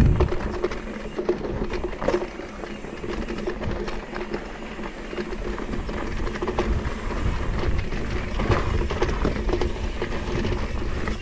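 Mountain bike rolling down a dirt trail: tyre noise and the bike rattling over bumps, with many small knocks over a steady hum.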